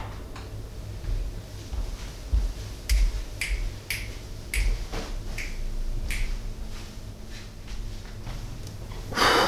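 A run of about six sharp clicks, roughly half a second apart, over soft low thuds and a faint steady hum.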